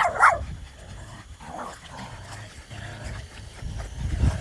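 Dogs squabbling: a short, sharp yelp right at the start, then low, rumbling growls.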